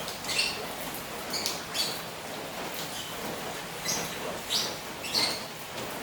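Birds giving about half a dozen short, high chirps over the steady patter of rain falling on a koi pond.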